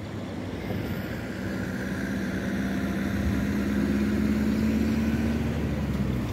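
An engine running with a steady hum that rises slightly in pitch and grows louder over the first few seconds, then eases off near the end, over a low rumble.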